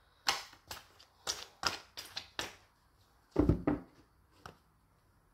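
Tarot cards being shuffled by hand: a quick run of about eight card slaps and riffles over roughly two seconds, then two heavier thumps a little after three seconds in and one light tap near the end.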